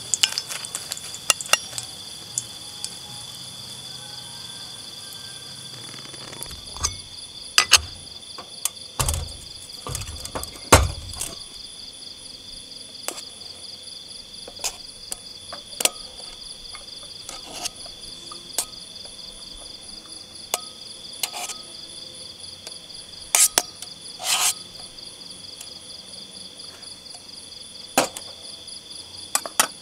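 Steady chorus of crickets chirping, with scattered clicks and knocks of metal utensils against pans and bowls as food is served. The loudest are a few duller knocks about a third of the way in.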